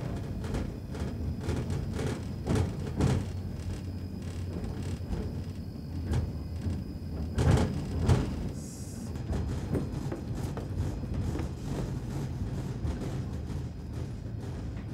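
Tram running, heard from inside the car: a steady low hum with irregular knocks and rattles.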